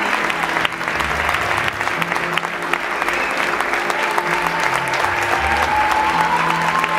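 Theatre audience applauding steadily, many hands clapping at once, with music playing underneath.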